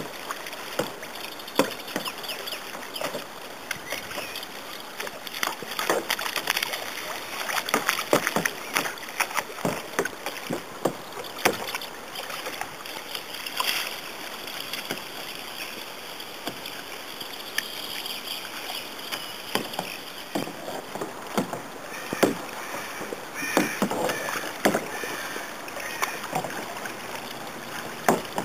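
Kayak paddle blades dipping and splashing in calm water, stroke after stroke at uneven intervals, over a steady hiss.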